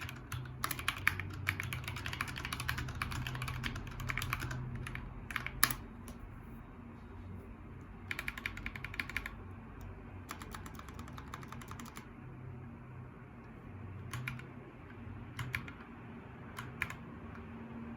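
Typing on a MIIIW Art Series mechanical keyboard with Gateron Yellow Pro linear switches and PBT keycaps: fast runs of keystrokes for the first six seconds, two shorter runs after that, then a few single key presses near the end, over a steady low hum.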